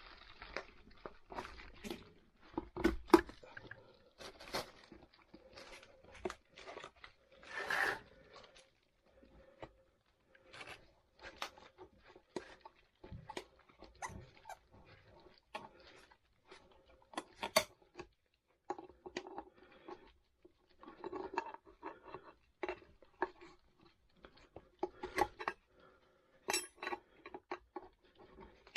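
Rubber tubeless scooter tire being forced by hand over the wheel rim: irregular short knocks, creaks and rubbing, with the loudest knock about three seconds in and a longer scrape about eight seconds in.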